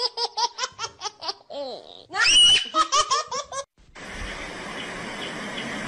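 High-pitched laughter in rapid pulses, broken about two seconds in by a shrill squeal. It stops suddenly near four seconds and gives way to a steady rushing hiss.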